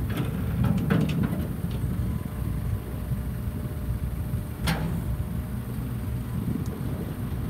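The diesel engine of a Hitachi Zaxis 50 mini excavator runs steadily while the boom and arm are worked. There are a few knocks in the first second or so and one sharper knock a little past the middle.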